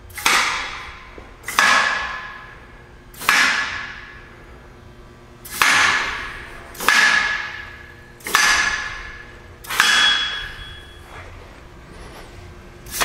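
Pneumatic air-cylinder clamps of a radius forming machine actuating one after another. Each gives a sudden burst of air that fades as a hiss over about a second, with a faint whistle in it, about every one and a half seconds, eight times. The clamps are working as they should.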